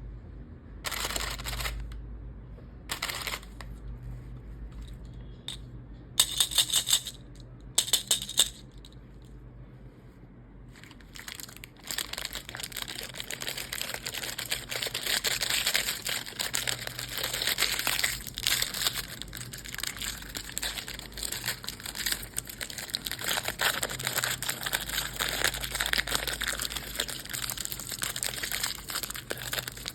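Plastic candy wrappers crinkling and crackling as sweets are unwrapped by hand: a few short, sharp bursts with pauses between them, two of them loud, then steady dense crinkling from about twelve seconds in.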